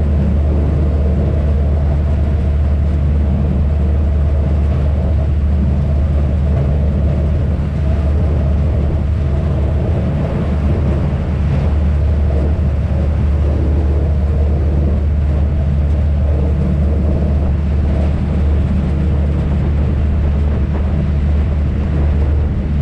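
Venice vaporetto water bus engine running steadily, a loud low drone that holds even throughout.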